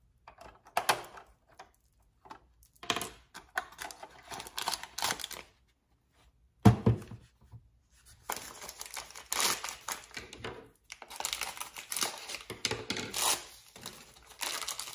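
Small plastic clicks and rattles as a little key works the compartment door of a plastic doll case. A single thump comes a little past halfway, then tissue-paper packaging crinkles and tears almost without pause.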